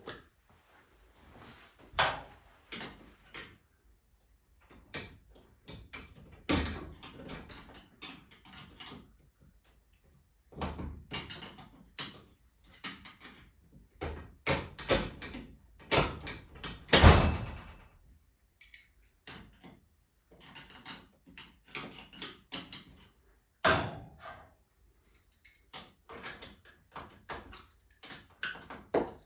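Irregular clanks, knocks and clicks of tools and metal hardware during garage door torsion spring work. A run of quick high clicks comes near the end.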